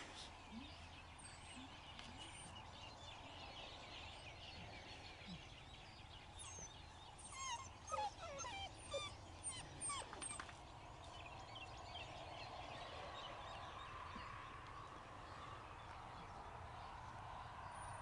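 Thai Ridgeback puppies whining and yipping: a quick run of short, high calls about halfway through, over a faint steady background hum.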